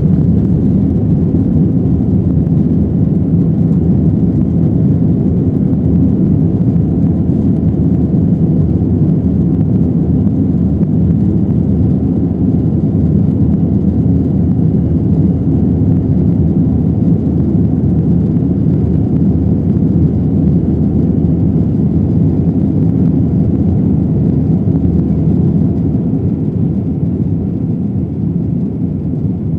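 Jet airliner's engines at takeoff power heard from inside the passenger cabin during the climb just after liftoff: a loud, steady, deep rumbling drone that eases slightly near the end.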